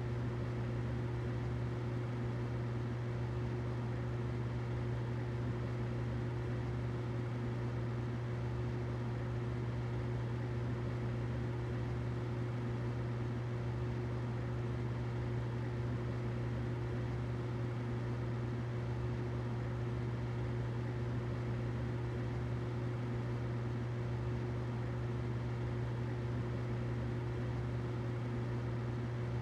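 Humidifier running steadily: a constant low hum with an even hiss over it.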